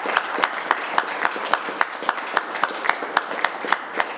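Applause from a small group, with one nearby pair of hands clapping sharply and steadily at nearly four claps a second above the rest.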